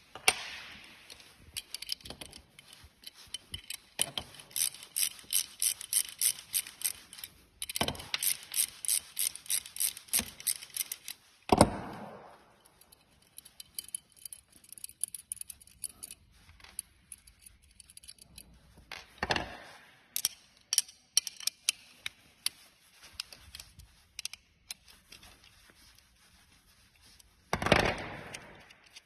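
Hand tools working on a sim-racing brake pedal's fasteners: two long runs of quick, evenly spaced small clicks, a few a second, like a ratcheting tool. Between them come scattered clicks and three louder scraping, rustling handling noises.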